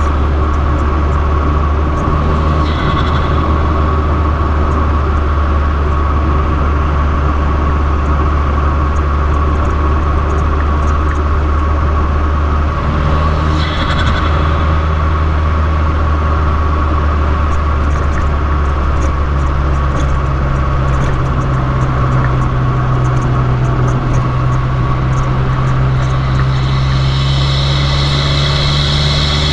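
Fiat 500 Abarth's 1.4-litre turbocharged four-cylinder running through an MPx cat-back exhaust while driving at a steady pace, giving a loud, even low drone; the engine note shifts slightly about two-thirds of the way through.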